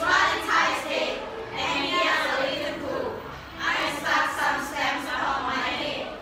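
A class of teenage students reading an English text aloud together in unison, many voices speaking in phrases in a chant-like choral reading.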